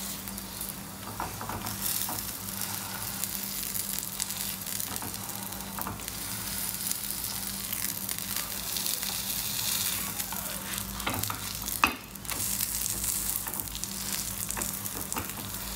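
Paneer paratha sizzling in ghee on a hot flat pan, with a spatula pressing and shifting it. A sharp click comes about twelve seconds in, over a steady low hum.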